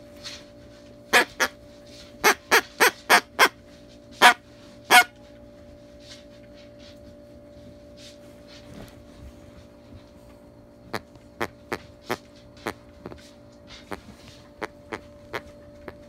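A dog chewing a plush squeaky toy, making its squeaker squeak in short sharp squeaks. About nine loud squeaks come in the first five seconds, then softer ones from about eleven seconds in.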